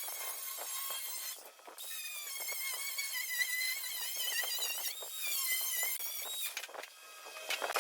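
High-pitched metallic squeal of a cutting tool working into 304 stainless steel, wavering in pitch, with two short breaks, one about a second and a half in and one near the end.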